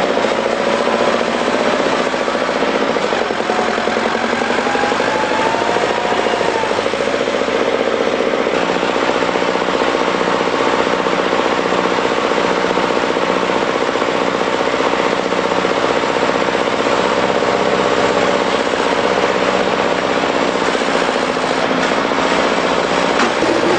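Heavy tractor diesel engines running hard under load in deep mud, a loud steady rapid clatter. The pitch rises and falls briefly about five seconds in.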